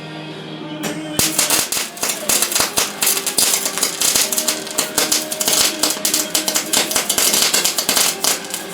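Background music with steady sustained tones, joined about a second in by fast, dense percussive hits that keep going until near the end.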